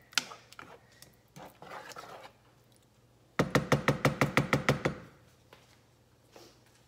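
Spoon stirring tomato sauce in a nonstick pan with light scrapes and clicks. About three and a half seconds in comes a quick, even run of about ten knocks as the spoon is tapped against the pan's rim.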